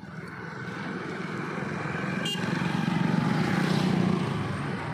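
A motor vehicle passing on the road: engine and tyre noise swell to a peak about three to four seconds in, then ease off a little. A brief click comes about two seconds in.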